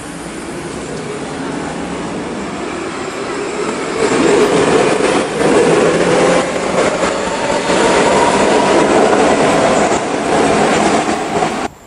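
Munich U-Bahn train pulling out of an underground station, its traction motor whine rising in pitch as it speeds up and the wheels clattering on the rails, growing louder as the cars pass. The sound cuts off suddenly near the end.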